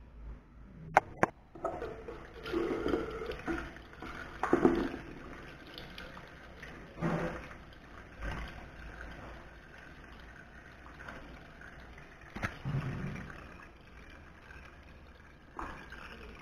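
Tap water running into a ceramic sink and splashing unevenly over a soaked waste-ink pad sponge being rinsed by hand. There are two sharp knocks about a second in, just before the water starts.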